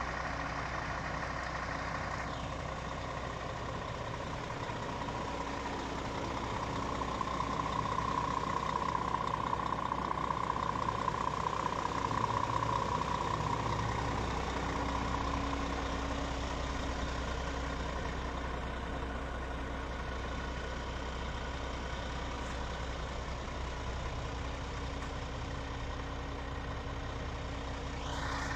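Scania R450 truck's 13-litre inline-six diesel idling steadily, with a higher whine that swells for several seconds midway.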